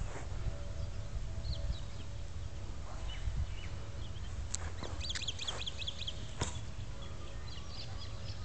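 Birds chirping and calling, with a quick run of high repeated notes about five seconds in, over a steady low rumble. Two sharp knocks stand out, one about four and a half seconds in and one about six and a half seconds in.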